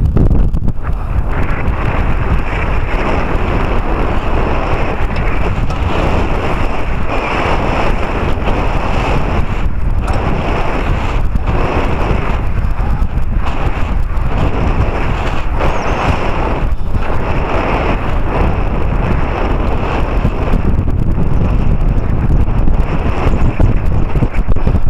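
Wind buffeting the microphone: a loud, steady rushing that rises and dips in short gusts.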